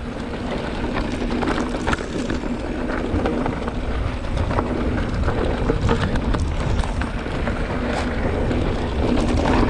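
Mountain bike ridden along a rough dirt trail: tyres rumbling over the ground, with frequent knocks and rattles from the bike as it hits bumps.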